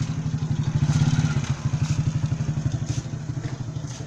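An engine idling steadily with a fast, even pulse, a little louder about a second in.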